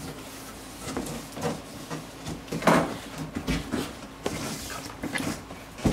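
Cardboard flaps of a large shipping box being lifted and pulled open by hand: scattered scrapes, rustles and dull knocks, the loudest a little under three seconds in.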